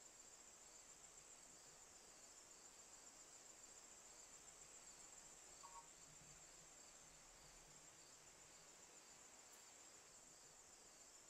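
Faint, steady, high-pitched trilling of insects in the background, a continuous chorus with a fine pulsing texture.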